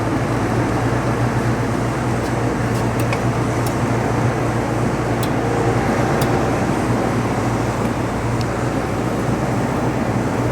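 Heidelberg Stahl B20 paper folder with a steady machine hum and whir and a few faint clicks, as its motorised buckle plates drive themselves home and reposition to set up a new letter-fold job.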